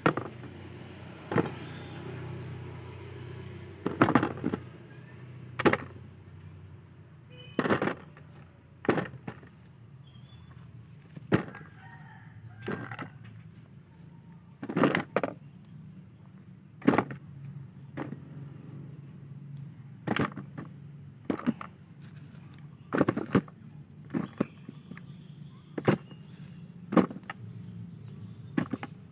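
Picked fruit dropped piece by piece into a plastic basin: about twenty sharp knocks at uneven gaps of a second or two, over a low steady background hum.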